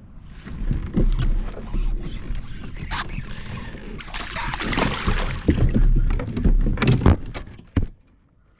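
Kayak or small boat on the water: wind rumbling on the microphone, with water noise and several sharp knocks. The sound drops off suddenly near the end.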